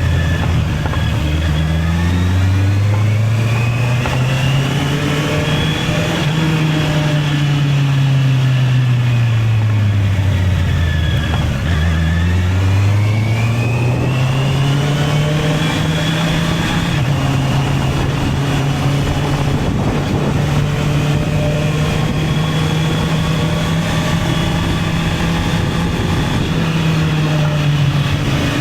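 Honda CB650R's inline-four engine on the move. It pulls up through the revs over the first few seconds, eases off to a low note about ten to twelve seconds in, picks up again, and then holds a steady cruising note with small rises and dips.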